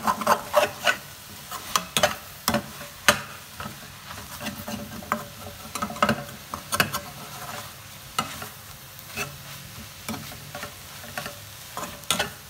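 Spatula stirring and scraping drumstick leaves and scrambled egg around a steel kadai, with irregular clicks and scrapes against the pan over a steady frying sizzle.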